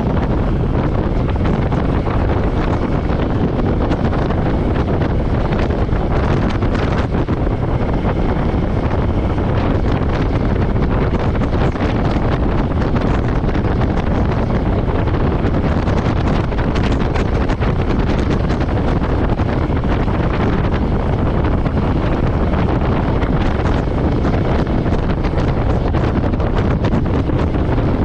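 Steady wind noise on the microphone of a moving Royal Enfield Meteor 350, with the bike's single-cylinder engine running beneath it. The sound holds steady with no sudden events.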